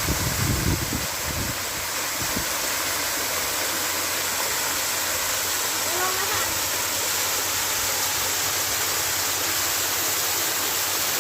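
Steady, even rush of water falling, as from a waterfall.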